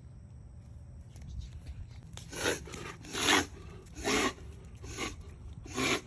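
Alaskan malamute reverse sneezing: five quick, noisy breaths pulled in hard through the nose, a little under a second apart, beginning about two seconds in. A vet diagnosed it as reverse sneezing and nothing to worry about.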